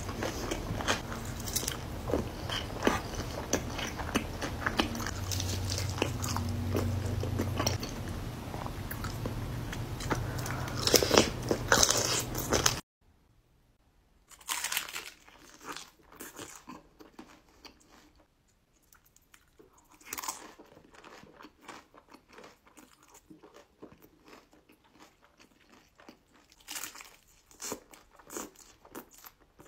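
Close-up eating sounds: dense chewing and mouth clicks for about the first dozen seconds. After a sudden drop to a quieter recording come sparse, crisp crunches of bites into a hard taco shell drenched in cheese sauce, with chewing between them.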